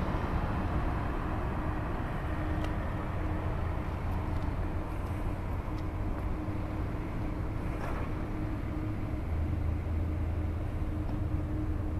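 Steady low rumble of an idling diesel truck engine, with a constant hum over it.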